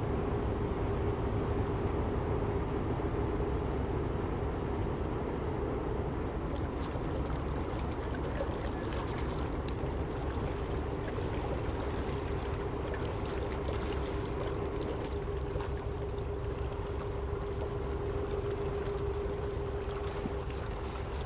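A passing container ship: a steady low drone from its machinery with a constant hum, joined from about six seconds in by the splashing rush of water churned up at its stern.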